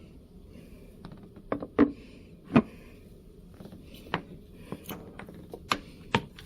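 Dishes, lids and utensils on a meal tray being handled: a scattered run of sharp clicks and knocks, about ten in all, the two loudest a little under two and about two and a half seconds in.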